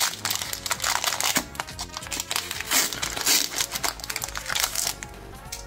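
Foil trading-card booster pack crinkling as it is torn open by hand, in dense crackles that die away near the end, over background music.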